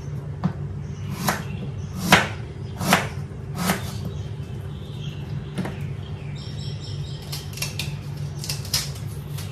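Knife cutting through apples onto a cutting board: five sharp chops a little under a second apart during the first four seconds, then fainter scattered taps and clicks. A steady low hum runs underneath.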